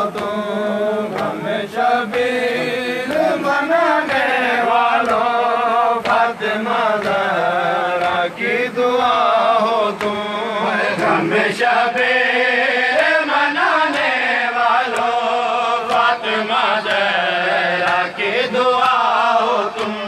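Men's voices chanting a Shia noha (mourning lament) in a melodic, continuous chant. Sharp slaps of chest-beating (matam) keep a steady beat of about one a second.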